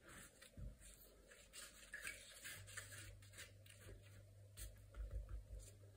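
Faint rustling and soft scraping of a hand spreading grated Parmesan over a sheet of puff pastry on baking paper. A low steady hum comes in a little before halfway.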